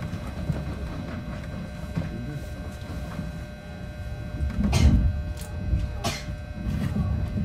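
Onboard running noise in a JR West 221 series motor car with the air conditioning off: a steady low rumble of wheels and running gear with a few faint steady tones, and sharp knocks about five and six seconds in.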